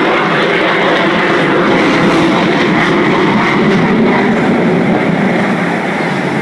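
Fighter jet engine noise, loud and steady, as the jet flies past.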